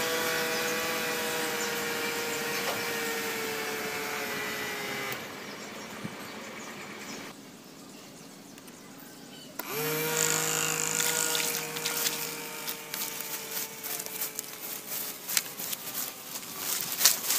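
Small DC motors spinning the propellers of a homemade bottle air boat: a steady whine that sinks slightly in pitch and stops about five seconds in. The whine starts again with a quick rise in pitch about ten seconds in, and scattered clicks and crackle come in over the last few seconds.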